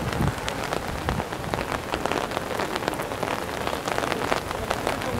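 Rain falling, with many separate drops ticking sharply against an even hiss.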